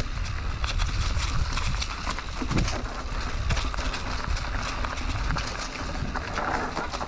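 Canyon Neuron full-suspension mountain bike riding down a dry, leaf-covered dirt trail: tyres rolling over leaves and dirt, with frequent clicks and rattles from the bike. Steady wind rumble on the microphone underneath.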